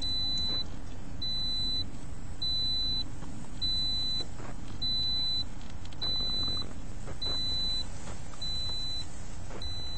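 A car's door-open warning chime: a single high beep repeating steadily, a little less than once a second, over a low steady rumble.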